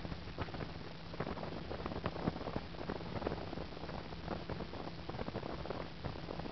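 Wind buffeting the microphone on a moving motorboat, in irregular gusts, over a steady low hum from the boat's engine.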